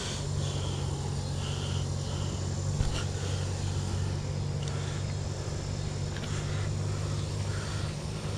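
A steady low mechanical hum sets in at the start and holds, with one sharp click about three seconds in.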